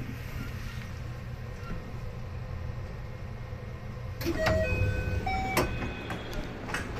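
Steady low hum inside the door vestibule of a 285-series electric sleeper train at a standstill. About four seconds in, the sliding door opens with clicks and clunks and a run of short electronic tones, followed by a few knocks of footsteps stepping off.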